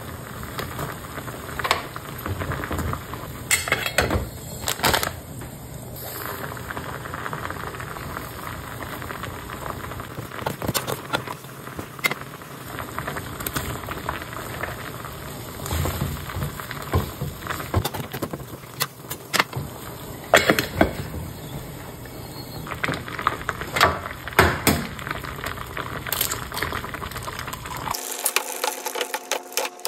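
Water at a rolling boil in a thin gold-coloured aluminium ramyeon pot on a gas burner, a steady bubbling hiss. Scattered clinks and taps come from the lid and utensils and from chopped vegetables dropped into the pot. Near the end the sound changes abruptly to a thinner one with a few steady tones.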